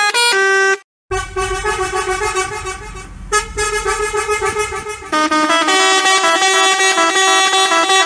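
Vehicle horn sound effect, edited to play short tunes in stepping pitches. It cuts out briefly about a second in. A new horn tune then starts with a low rumble under it, and a further run of horn notes follows about five seconds in.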